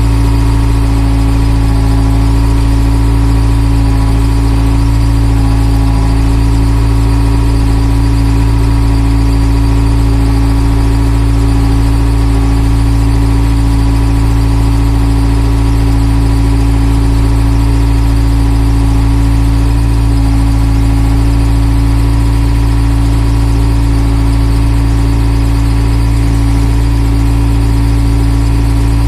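JCB backhoe loader's diesel engine running steadily under way, heard from inside the cab: a constant low rumble with a steady whine over it.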